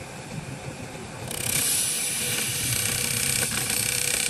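A woodworking machine cutting or sanding wood, a steady hissing noise with a faint whine that comes in strongly about a second in.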